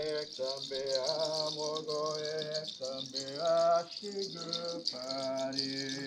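A hand rattle of dried seed shells strung on cords, shaken without a break and giving a steady high rustle, while a man chants in a low voice in long held notes that break every second or so.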